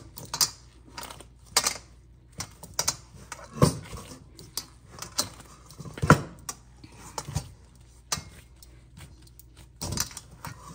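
Kneading a firm dough by hand in a hammered metal bowl: irregular knocks and scrapes of the dough and hand against the bowl, roughly once a second, with the jingling of a metal chain bracelet on the kneading wrist.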